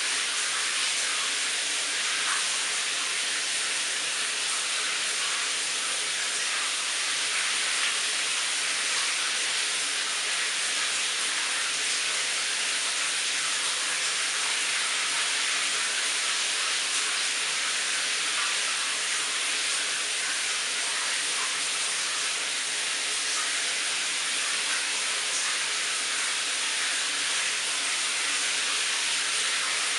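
Shower running: a steady, even hiss of water spray.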